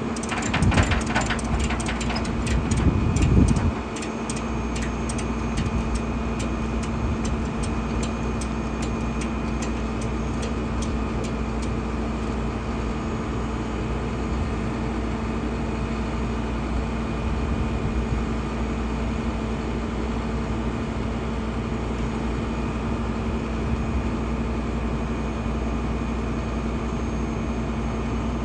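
Flatbed tow truck's engine idling steadily with a constant hum. Over the first dozen seconds there is a run of sharp clicks that come further and further apart, with a louder rattle about three seconds in.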